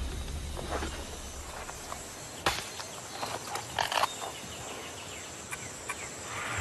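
Machete striking a hard Brazil nut pod to break it open: one sharp knock about two and a half seconds in, then a quick cluster of cracks and knocks around four seconds, over a faint steady forest hiss.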